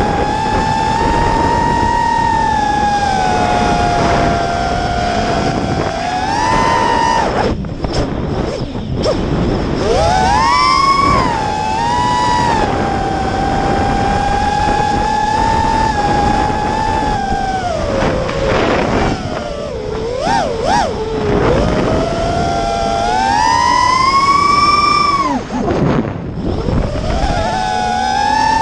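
FPV quadcopter's brushless motors and propellers whining, the pitch rising and falling with the throttle. The sound drops out briefly three times: about a third of the way in, around two-thirds in, and near the end.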